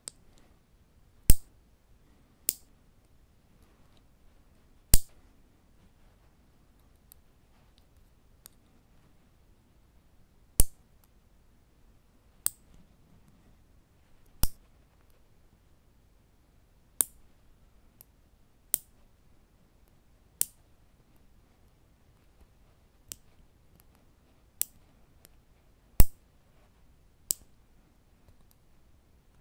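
Standard fingernail clippers snipping through fingernails: single sharp clicks at an uneven pace, one to three seconds apart, some much louder than others, with quiet between.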